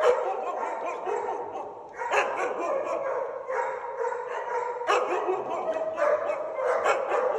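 A husky vocalizing in a run of drawn-out, wavering howling calls, several in a row, each starting afresh about every second or so.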